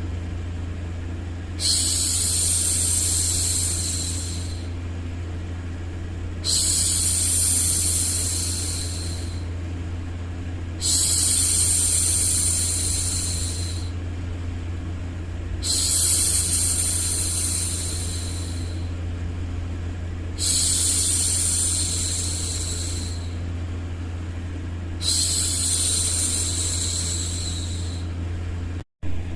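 A woman's voice making long shushing 'shhh' sounds to hush a baby, six of them, each about three seconds long and repeating about every four and a half seconds. Underneath runs a steady low white-noise hum, with a very brief dropout near the end.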